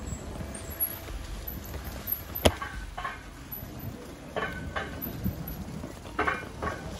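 Riding a bicycle on a cycle track: a steady rumble of tyres and wind on the microphone, one sharp click about two and a half seconds in, and a few short snatches of voices from passers-by.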